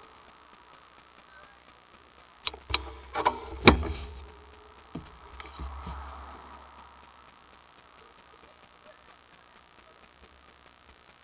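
Bicycle freewheel ticking slowly and evenly, about three to four ticks a second. Between about two and a half and four seconds in comes a burst of clattering knocks and rattles over a low rumble.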